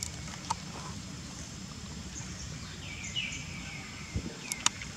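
Outdoor ambience with birds giving short falling chirps several times over a steady high hiss, plus two sharp clicks, the louder one near the end.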